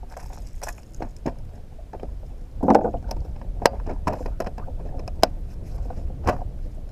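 Low rumble of wind and water on a kayak-mounted camera, under a string of sharp clicks and knocks from the kayak and its gear, with one louder rustling burst about three seconds in.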